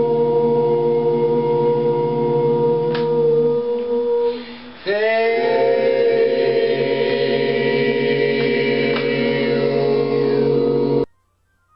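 Low chanted tone held long on one steady pitch. It breaks for a breath about four seconds in, then a second tone swoops up into place and is held until it cuts off suddenly near the end.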